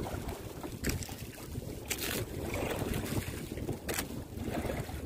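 Wind buffeting the microphone and sea water lapping against the wooden hull of a small outrigger boat, a steady rough rumble with no engine running, broken by three short sharp sounds.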